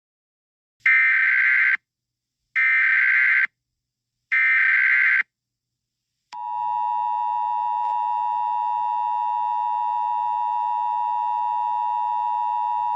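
Emergency Alert System header: three short bursts of buzzing SAME data tones, each just under a second and about 1.7 s apart. Then, about six seconds in, the steady two-tone EAS attention signal comes on and holds, announcing an alert message to follow.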